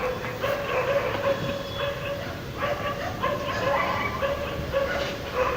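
Dogs barking repeatedly, many short calls overlapping, over a steady low hum of city background noise.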